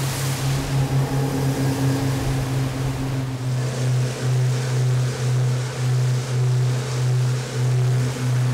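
The twin outboard motors of a small survey boat running at speed: a steady low drone over rushing water and spray. From about halfway the drone swells and dips rhythmically, about one and a half times a second.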